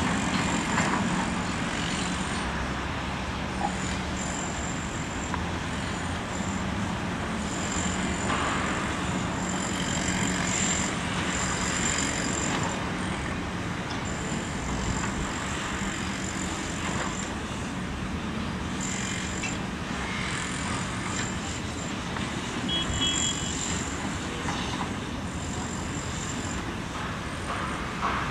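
Diesel engines of a tracked excavator, a bulldozer and a dump truck running together with a steady low drone, with high thin squeaks coming and going.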